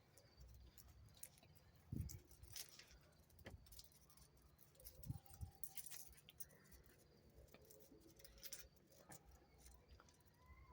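Near silence, broken by scattered faint clicks and a few soft taps, one a little louder about two seconds in.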